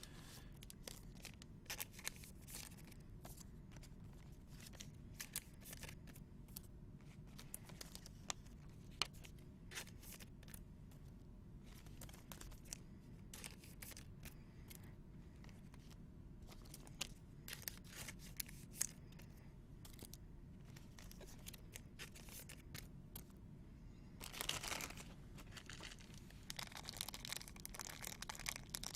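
Faint handling of trading cards and their packaging: scattered light clicks and taps, with a longer crinkling rustle of wrapper about 24 seconds in and again near the end.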